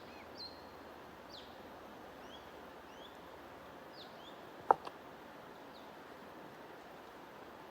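Small birds giving short, high chirps every half second or so over a steady hiss of white noise or flowing water. A single sharp click sounds a little under five seconds in, louder than anything else.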